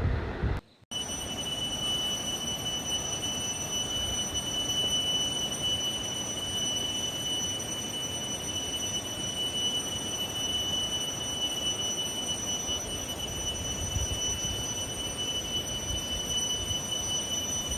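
An insect's continuous high-pitched, bell-like ringing call: one steady tone with an overtone above it, taken by the local trekker for a kind of beetle found in Buxa.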